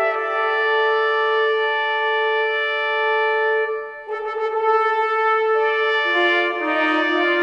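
Orchestral film-score music with brass holding sustained chords. It breaks off briefly a little past halfway, then a new chord swells in with lower notes joining.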